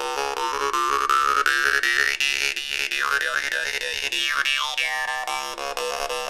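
Hand-forged stainless-steel jaw harp (vargan) with a bronze overlay being played. Its reed is plucked in a quick, even rhythm over a steady buzzing drone, while a whistling overtone melody sweeps up and then wavers up and down as the mouth changes shape.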